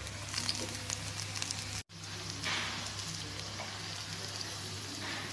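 Flour-battered fig slices sizzling in hot cooking oil in a pan, with a steady hiss and fast small crackles as the pieces go in. The sound cuts out briefly about two seconds in, then the sizzle carries on.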